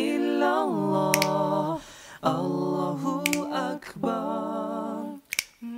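Unaccompanied voice singing long, wavering held notes in phrases broken by short pauses, with a few short sharp clicks between phrases.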